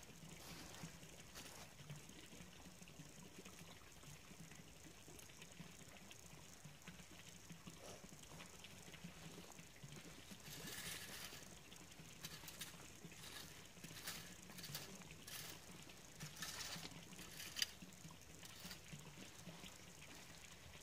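Faint scraping and rustling of a garden rake drawn through dead leaves, soil and debris, in scattered strokes. Two slightly louder rustling strokes come about halfway through and again a few seconds later.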